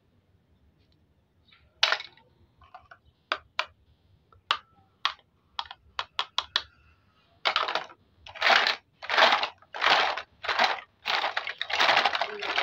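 Hollow plastic toy fruit and vegetable pieces clicking and knocking together in the hands. About halfway through, a run of longer rough scraping rustles starts, roughly one and a half a second, louder than the clicks.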